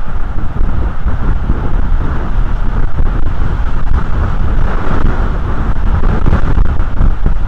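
Wind buffeting the outdoor nest-cam microphone: a loud, steady rumbling noise.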